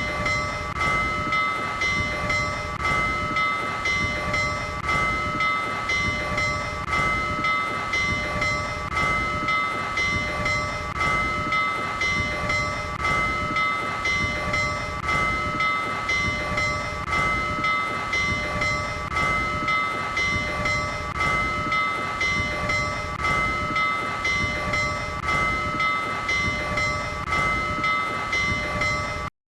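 Bell of Union Pacific 844, a steam locomotive, rung steadily in an even swinging rhythm, each stroke ringing on into the next. It cuts off abruptly just before the end.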